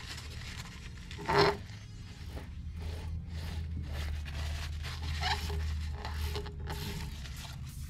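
Paper towel rubbing and rustling against a pool cue's ferrule as it is wiped clean before the tip is glued on, in short scratchy strokes over a low steady hum.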